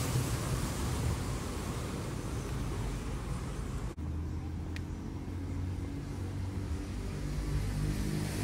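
Street traffic noise from cars passing. After a sudden brief cut about halfway, a steadier low engine hum carries on.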